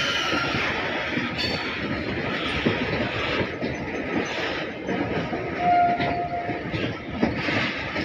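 Indian Railways goods train of tank wagons rolling past, its wheels clattering over the rail joints in a steady rumble, with a brief high squeal about six seconds in.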